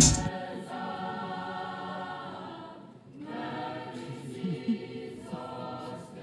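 A choir singing unaccompanied, holding long sustained chords, with a short break about halfway through before it sings on.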